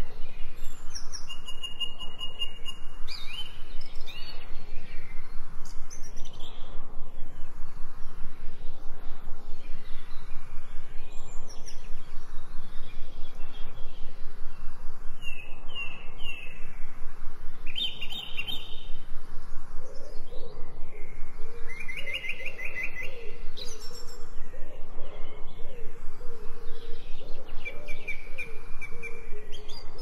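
Wild birds chirping and calling: short high chirps and quick trills come and go, and a lower wavering call joins in the second half.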